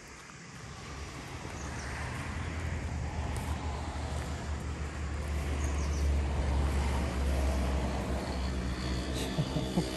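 A motor vehicle engine running nearby, a low rumble that grows louder over the first half and then holds steady.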